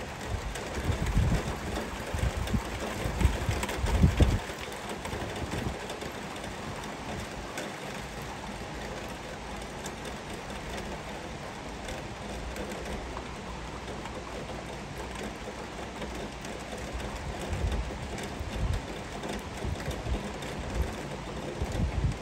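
Heavy rain falling steadily, an even hiss throughout. Low, uneven rumbling gusts come over it from about one to four seconds in and again near the end.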